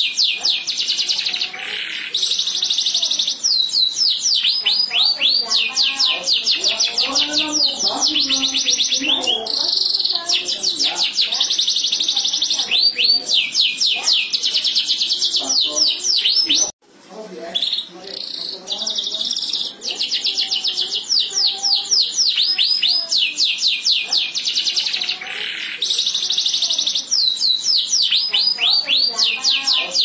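Domestic canary singing a long song of fast trills made of short, falling notes, alternating with buzzy rolls. There is a brief break about seventeen seconds in.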